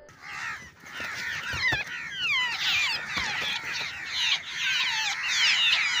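A group of babblers caught under a net trap chattering: many harsh, overlapping down-slurred calls at once, growing thicker and more continuous after about two seconds.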